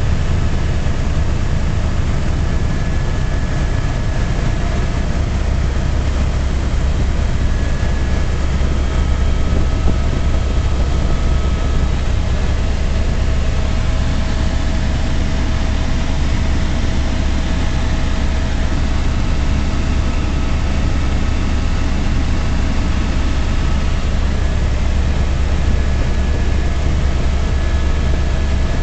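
Helicopter cabin noise in steady flight: a loud, even low rotor drone with a few faint steady whining tones above it.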